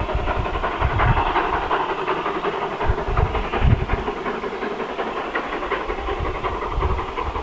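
Steam tank locomotive working hard up a steep gradient: a continuous hiss and rush of exhaust steam with uneven low thumps.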